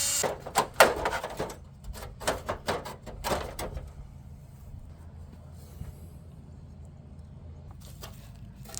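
An electric drill stops right at the start. Then comes a run of sharp clicks and knocks of small metal hinge parts being handled for about four seconds, with a few more knocks near the end over a low steady hum.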